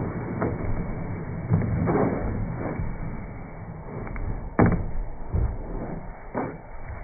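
A German Shepherd's paws and body knocking and scraping on a plastic-topped folding table: a string of uneven thumps, the loudest about four and a half seconds in.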